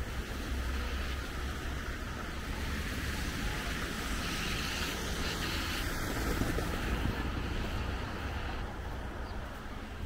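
Steady city street noise, traffic with low wind rumble on the microphone. A vehicle passes about four seconds in, a brighter hiss that fades near nine seconds.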